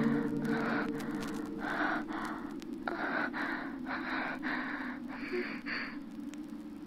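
A person breathing heavily in quick gasping breaths, about two a second. The tail of a held organ chord fades out at the start.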